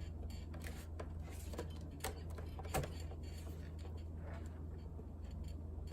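Scattered plastic clicks and taps of a laptop battery being pushed into its bay and its locking latch worked, the two loudest clicks about two and three seconds in, over a steady low hum.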